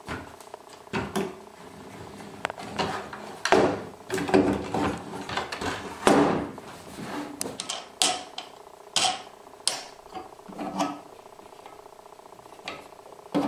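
Wooden jig parts being handled, set down and slid on a wooden board: a string of irregular wooden knocks and scrapes, the busiest stretch a few seconds in.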